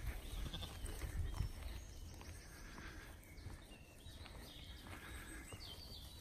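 Flock of sheep walking over grass: soft, scattered hoof steps and rustling, with low rumbling in the first second and a half.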